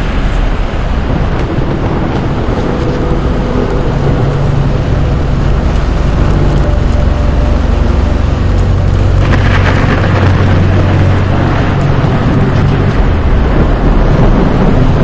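Rain and wind over a steady low vehicle rumble. The rain hiss grows heavier about nine seconds in.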